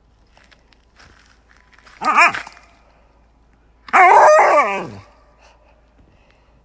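Siberian husky giving two drawn-out, wavering vocal calls: a short one about two seconds in, then a longer, louder one lasting about a second, starting about four seconds in and falling in pitch at its end.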